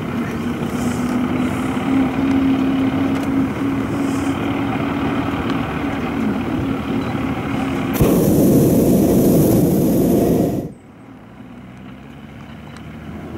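Steady background noise with a low hum, then a hot-air balloon's propane burner firing in one loud blast of about two and a half seconds that cuts off suddenly.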